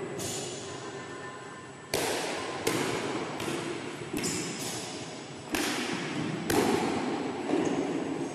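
Badminton rally: a racket strikes the shuttlecock about once a second, each hit a sharp crack that echoes around a large, bare hall.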